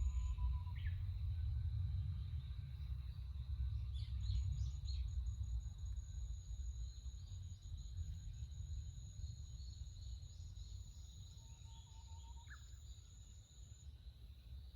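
Forest ambience: a few short bird chirps, a small cluster about four seconds in, over a steady high insect drone and a low rumble that slowly fades.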